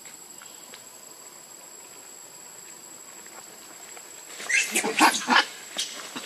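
Baby pig-tailed macaque giving a quick run of four or five loud, high squeals about four and a half seconds in, then one short squeak just before the end.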